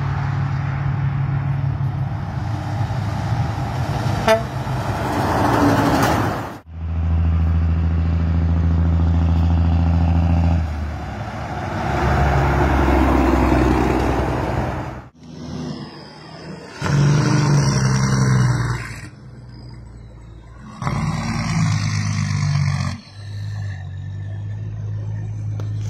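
Heavy trucks driving past with their engines running and long, steady air-horn blasts, several held for a few seconds each. The clips are cut together, so the sound changes abruptly a few times.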